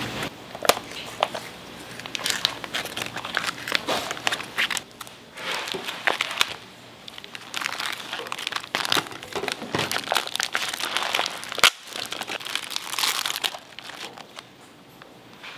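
Plastic food packaging crinkling and rustling as it is cut open with scissors and handled, in irregular sharp crackles that thin out near the end.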